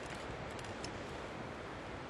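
Steady rushing of a river's flowing water, with a few faint ticks about half a second in.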